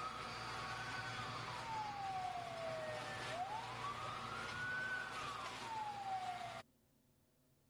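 An emergency-vehicle siren wailing in slow rising and falling sweeps, about two full cycles, over a steady hiss. The sound cuts off suddenly about six and a half seconds in.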